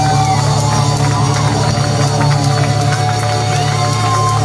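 Live rock band playing through a PA: notes bending up and down over a steady, sustained low chord, with crowd voices underneath.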